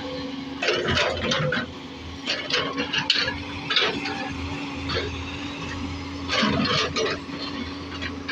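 JCB backhoe loader's diesel engine running steadily, with several irregular bursts of scraping and rattling as the bucket works and drops mud.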